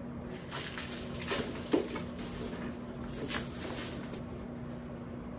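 Plastic shrink wrap crinkling and rustling as it is handled and pulled at on a cardboard gift box, with a few light ticks, over a steady low hum.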